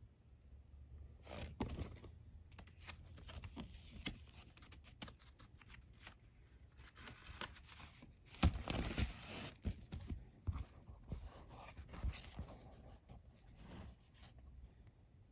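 Vinyl LP packaging being handled and opened: irregular rustling, crinkling and tearing of wrap and sleeve, with scattered taps and scrapes. The rustling is densest and loudest about two-thirds of the way through.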